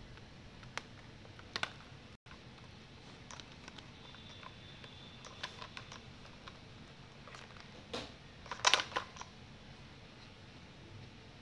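Cocker spaniel puppy chewing a hard plastic toy: irregular sharp clicks of teeth on plastic, with a louder flurry of clicks about three-quarters of the way through.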